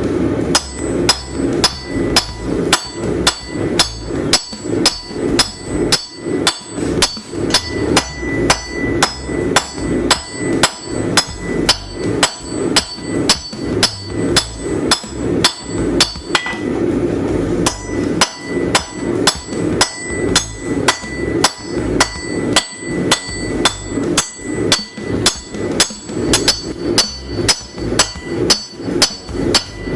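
Hand hammer forging a railroad spike on an anvil, about two blows a second, each with a ringing metallic tone. The hammering breaks off briefly a little past halfway, then resumes.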